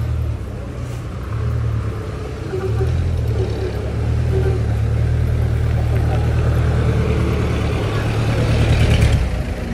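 Vehicle engines running in street traffic, with a steady low engine hum close by that swells loudest near the end as a jeepney alongside revs.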